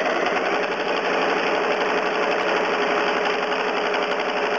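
Home sewing machine running steadily at speed while machine-quilting through a quilt with a darning foot: a rapid, even stitch clatter over a steady motor whine.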